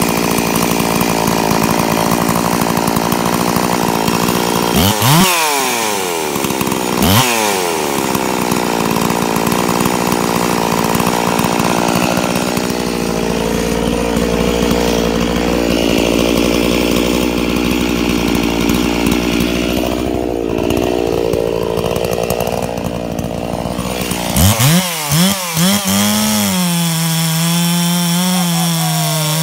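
Freshly rebuilt Stihl 064 two-stroke chainsaw, fitted with a 54 mm 066 cylinder and piston, running at high revs. It is blipped sharply twice, then revved in several quick bursts before settling into a steady, slightly wavering pitch as it cuts into a log near the end.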